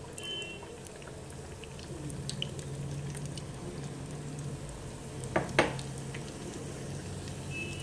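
Gram-flour-battered spinach leaves deep-frying in hot oil: steady sizzling and bubbling with scattered small crackles, getting louder about two seconds in as a second battered leaf goes into the oil. Two sharp clicks a little past halfway.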